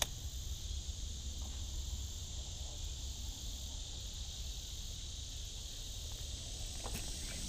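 Steady high-pitched chorus of insects, an even buzzing drone with no pauses, over a faint low rumble.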